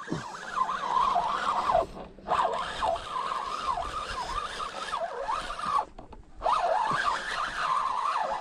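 Fishing reel being cranked fast to bring in a hooked jack: a wavering whine that rises and falls with each turn of the handle, stopping briefly twice.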